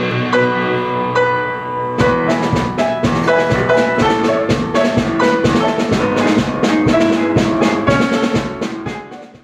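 Upbeat instrumental music. A drum kit comes in about two seconds in with a steady beat, and the music fades out near the end.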